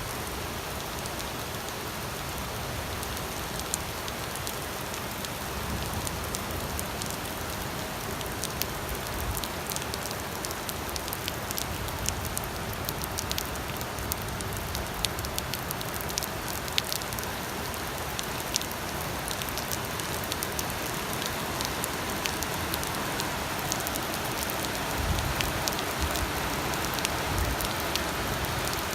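Steady rain falling, a continuous hiss with many sharp individual drops ticking on a nearby surface.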